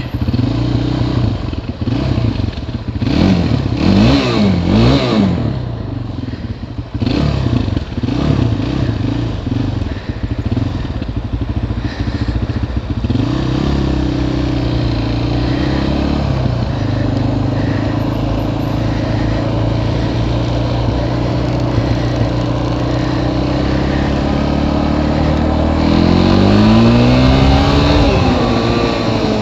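Suzuki ATV engine running while ridden. It revs up and down quickly several times early on, runs steadier through the middle, and climbs in a long rising rev near the end.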